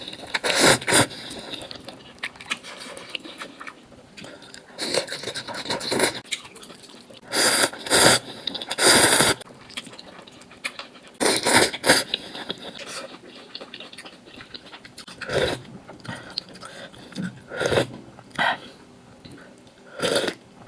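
A person eating spicy noodles: loud slurps come every few seconds, lasting under a second each, with quieter chewing between them.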